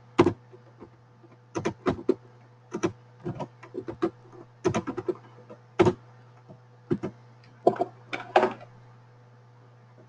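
Irregular computer mouse clicks and keystrokes, about a dozen short sharp clicks with uneven gaps, over a steady low electrical hum.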